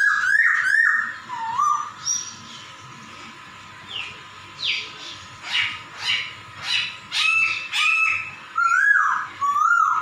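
Caged poksay (laughingthrush) calling: a few gliding whistled notes at first, then, after a short lull, a quick run of short, sharp, downward-sweeping chirps, and more whistled notes near the end.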